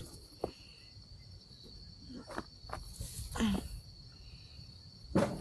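Insects chirring with a steady high-pitched drone, overlaid by several short knocks and clicks, the sharpest near the end.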